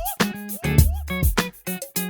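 Background music: a funky plucked guitar riff with short bent notes over a bass line and a steady beat.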